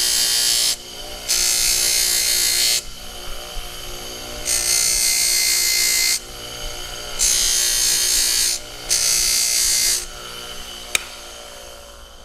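A steel Carrillo connecting rod is pressed against a running grinder about five times in a row. Each pass gives a loud sanding hiss over the grinder motor's steady hum. Metal is being taken off the rod's top end to bring its weight down to match the other rods. After the last pass the hum fades, and there is a single sharp click.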